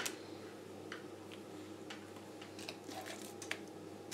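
Light clicks and taps from a handheld digital multimeter and its test leads being handled, over a low steady hum.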